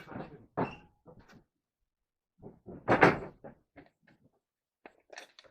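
A few hard knocks and light clattering bumps of wood or tools being handled, the loudest about three seconds in, with a few small clicks near the end. No saw is running.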